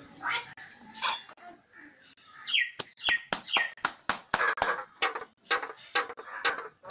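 Common myna calling: a few short harsh notes, then three falling whistles about two and a half seconds in, followed by a quick run of sharp clicking, chattering calls.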